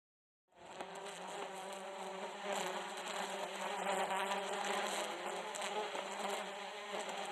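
Bees buzzing: a steady, droning hum over a layer of hiss, starting abruptly about half a second in.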